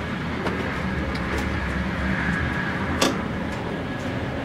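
Steady running noise of a Sapsan high-speed train heard inside the carriage, with a sharp knock about three seconds in.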